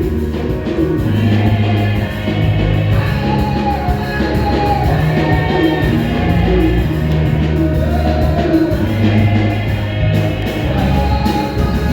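A choir singing a gospel song over instrumental accompaniment with long held bass notes.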